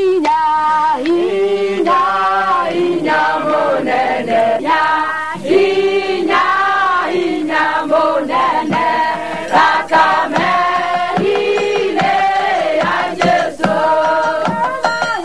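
A group of women singing a gospel song together in held, sustained notes, with a few sharp percussive hits now and then.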